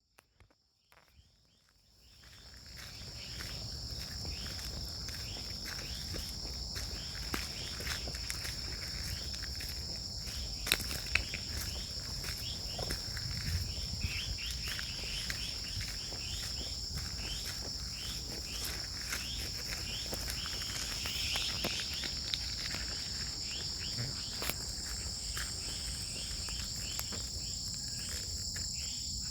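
Steady outdoor chorus of crickets and other insects, two even high-pitched trills with many short repeated chirps over them, above a low rumble. It fades in over the first few seconds, and a few sharp clicks stand out near the middle.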